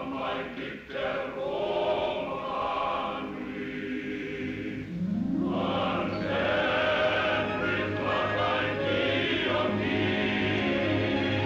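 Film score with a choir singing a slow, sustained melody; lower voices come in and the music grows louder and fuller about five seconds in.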